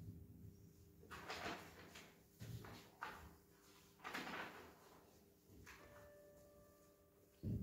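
Near-quiet pause after the piano stops: soft, brief rustles of sheet music being handled on the piano's music stand, a faint held note about two thirds of the way in, and a short low thump near the end.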